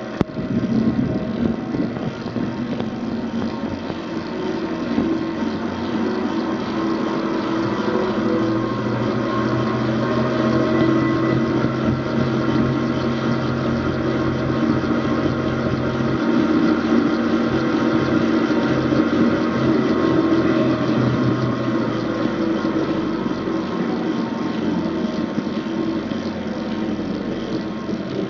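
Erweka RS 100 R 100-litre jacketed mixing tank running, its agitator turning in the empty vessel: a steady mechanical hum with several constant tones.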